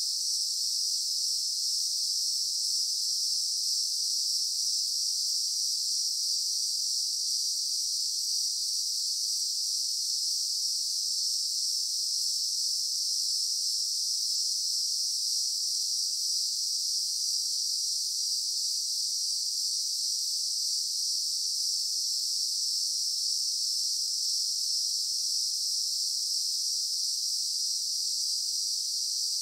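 Steady, unbroken high-pitched insect chorus with no pauses or changes in level. No koala calls are heard.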